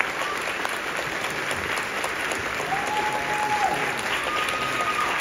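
Audience applauding steadily in a large hall. Two short, held high notes rise above the clapping about halfway through and again near the end.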